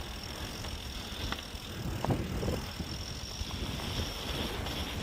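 Mountain bike rolling over a dirt trail: steady tyre and trail rumble with a few light knocks, and wind buffeting the microphone.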